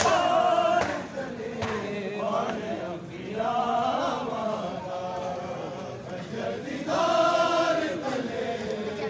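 Crowd of men chanting a mourning lament (noha) together, with sharp rhythmic strikes of open hands on bare chests (matam) about every 0.8 seconds over the first two seconds. The chant swells twice after that.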